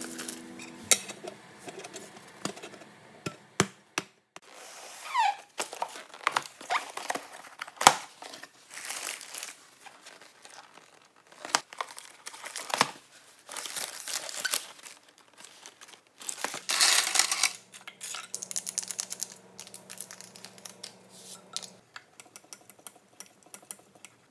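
Takeout food packaging handled up close: a paper bag and cardboard box crinkling and tearing open, with scattered clicks and light knocks on the countertop.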